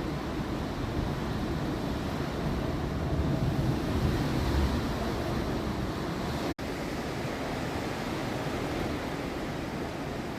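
Heavy rain falling steadily, a dense even hiss that swells a little midway and cuts out for a split second about six and a half seconds in.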